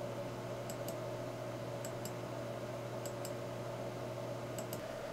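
Computer mouse clicking: four quick pairs of soft clicks spaced about a second apart, over a steady low electrical hum and hiss.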